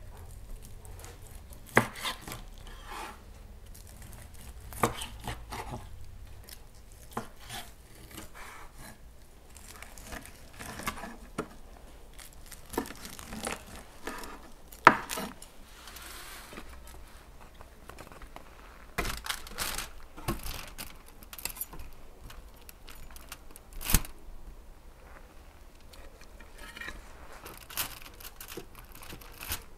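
Kitchen knife cutting through a whole baked eel on a wooden chopping board: irregular knocks of the blade on the board, with scrapes and clicks of the knife and spatula, a few knocks much sharper than the rest. Near the end, metal utensils scrape on baking foil while lifting baked slices.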